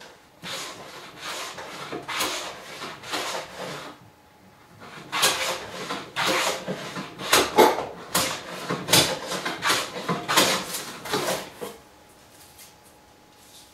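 Block plane shaving the edge of a wooden door's cladding in a run of short strokes, about one a second, with a brief pause around four seconds in; the strokes stop about twelve seconds in.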